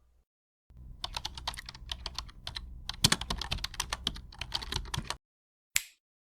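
Typing on a computer keyboard: a quick, uneven run of keystrokes for about four and a half seconds, then a short pause and one last sharp keystroke.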